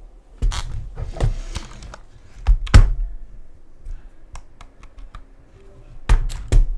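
Irregular clicks and knocks of a computer keyboard in use close to the microphone. The heaviest knocks come about two and a half seconds in and again near the end.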